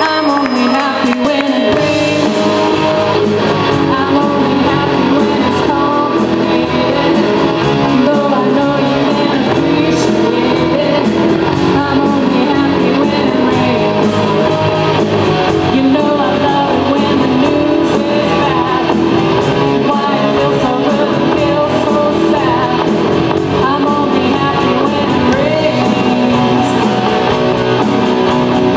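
Live rock band playing loud and steady, with electric guitars over a beat, and a voice singing at times.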